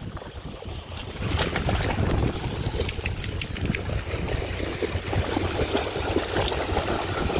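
Dogs splashing as they run through shallow sea water, a busy irregular sloshing from about a second in, over a low rumble of wind on the microphone.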